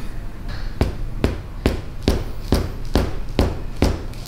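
A steady series of sharp thumps, a little more than two a second, evenly spaced, starting about a second in.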